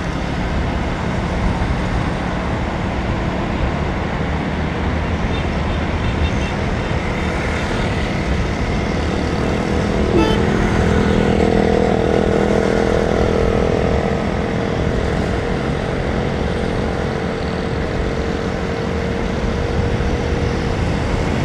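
Steady ride noise on a motorcycle moving through city traffic: the bike's engine, wind and the surrounding cars, rickshaws and motorcycles. From about ten seconds in, a steady drone from a nearby engine stands out for several seconds.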